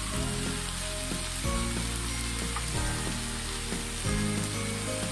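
Okra sizzling in a hot, nearly dry karai, a steady hiss, under soft background music whose sustained chords change about every second and a half.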